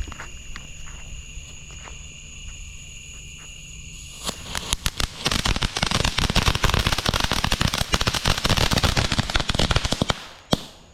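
Small consumer firework fountain (the 'happiness fountain') going off with a dense, fast crackling about four seconds in. It lasts about six seconds, stops abruptly, and ends with one last pop. Crickets chirp steadily behind it.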